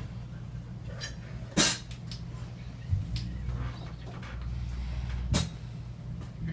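A low steady hum with three short sharp knocks, the loudest about one and a half seconds in.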